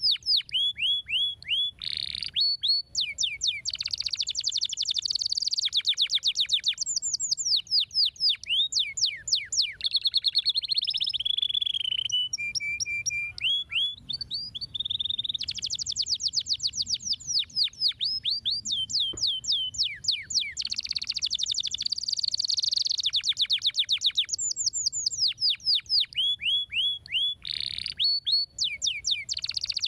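Canary singing a fast, continuous song of rolling trills: runs of rapid repeated whistled notes, each sliding down in pitch, switching every second or two between higher and lower phrases.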